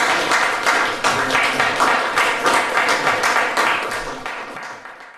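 Audience applauding with dense, steady clapping that dies away near the end.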